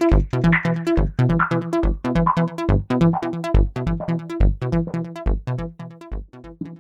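Electronic jam from an MPC One sampler and a Korg microKORG synthesizer: a steady kick-drum beat under a repeating synth pattern, with falling filter sweeps early on. It starts to fade out near the end.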